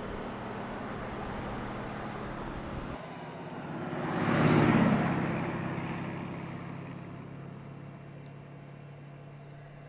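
Mercedes-AMG GT's V8 engine and wind noise from the moving car. About four and a half seconds in the car passes at speed, its engine note swelling and then fading away slowly.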